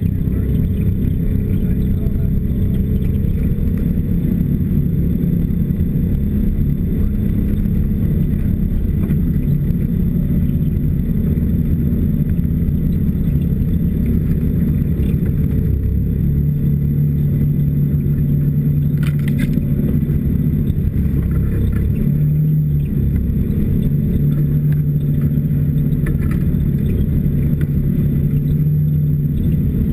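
Snowmobile engine running under way on a snowy trail: a steady low drone that settles into a more even pitch about halfway through, with a brief clatter a little past the middle.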